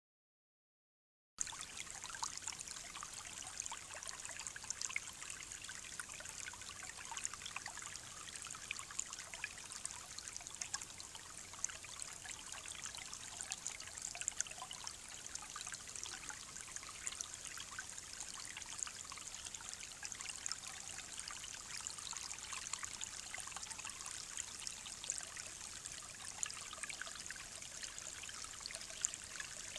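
Shallow, muddy creek trickling over its bed: a steady hiss with fine crackle, picked up by a trail camera's small microphone. It cuts in suddenly about a second and a half in, after digital silence.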